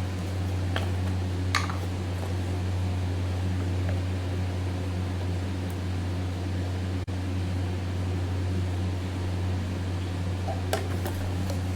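Steady low fan-like hum, with a few light taps about a second in and again near the end.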